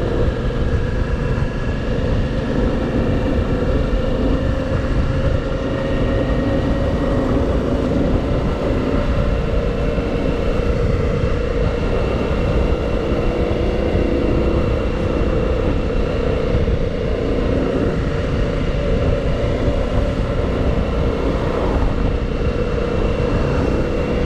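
Motorcycle engine, the V-twin of a 2009 Suzuki DL650 V-Strom, running steadily at a slowly drifting speed under a heavy rumble of wind on the microphone, as when riding along at an even pace.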